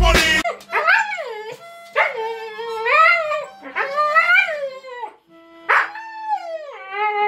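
Music cuts off about half a second in. Then huskies howl and 'talk' in a string of long whining calls of about a second each, each rising and falling in pitch.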